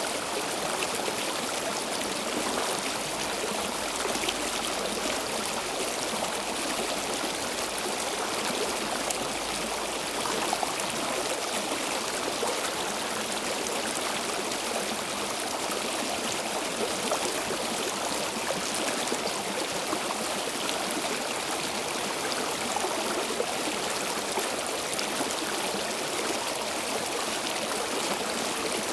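A flowing stream: water running and trickling steadily over stones, a constant rushing wash with fine splashing detail.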